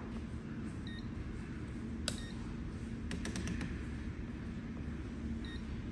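Digital insulation multimeter giving two short high beeps, about a second in and near the end, with a single click and then a quick run of clicks in between, over a steady low hum.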